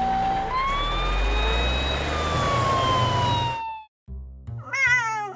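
Fire engine siren wailing over a low engine rumble: a held tone, then about half a second in a sweep that rises and slowly falls, cut off suddenly near 4 s. A short wavering voice follows near the end.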